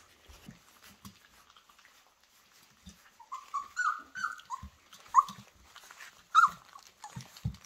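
24-day-old flat-coated retriever puppies feeding at a stainless steel puppy pan: faint lapping and smacking at first, then a quick run of short high whimpers about three seconds in, and single yelps later. A few low thumps sound in between.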